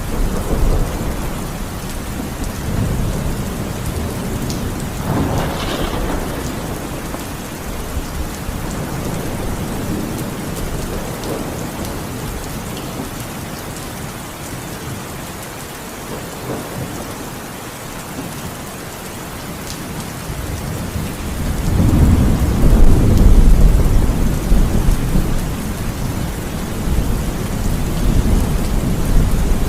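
Heavy rain falling steadily, with thunder rumbling. A brief crack comes about a fifth of the way in, and a long, loud, deep rumble of thunder builds about two-thirds of the way through before fading.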